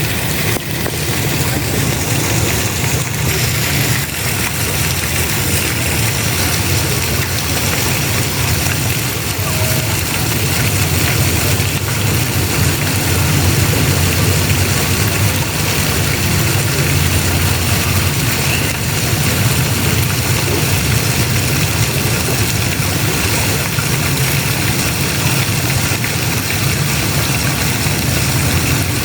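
Steady rush of spraying and falling water, with a constant low rumble underneath.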